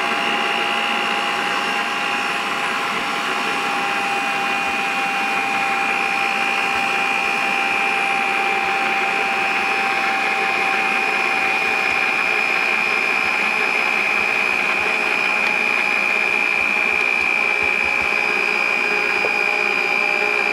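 Electric kitchen mixer running steadily, beating cake batter as the dry ingredients are worked into the wet mix. Its motor whine sinks slightly in pitch over the stretch.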